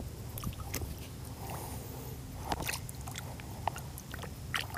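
Close handling noise as a caught grouper and a soft-plastic jig are held and worked by hand: scattered small clicks, taps and rubbing, a few louder ones around the middle and near the end, over a low steady rumble.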